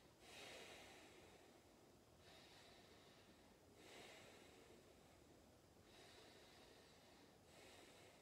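Faint, slow breathing, in and out, during a held yoga pose: soft rushes of air that swell and fade about every one and a half to two seconds.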